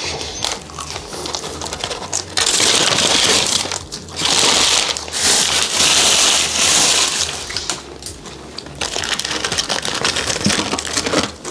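Paper takeout bag rustling and crinkling as it is handled, with two long loud stretches of crinkling in the middle and lighter paper rustles around them.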